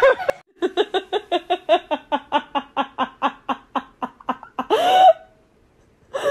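A long run of rapid, high-pitched laughter, about six short 'ha's a second, fading off and ending in a gasping in-breath about five seconds in.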